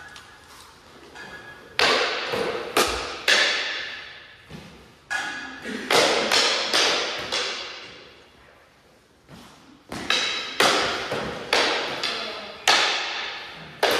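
Wooden singlesticks clacking together in three quick exchanges of sharp strikes, several strikes each, with each crack trailing off in the echo of a bare hall.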